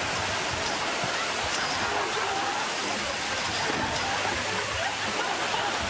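Steady, hard spray of water from a very high-pressure shower head running full on.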